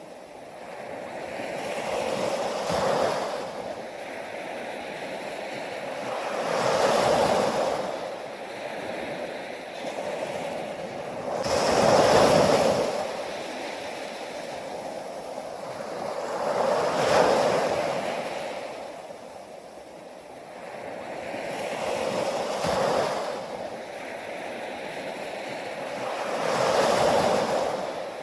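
Ocean waves washing in on a shore, swelling and ebbing in a steady rhythm, about one wave every five seconds.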